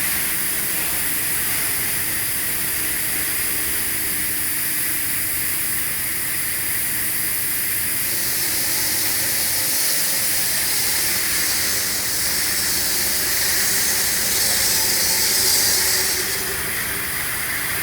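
Touch-free car wash spraying, a steady hiss of water and chemical jets over a low machine hum. The spray grows louder and brighter about eight seconds in and eases off near the end.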